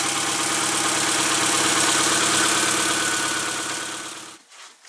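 Four-cylinder twin-cam car engine with tubular headers running at a steady idle while its ignition timing is being fine-tuned. It cuts off suddenly near the end.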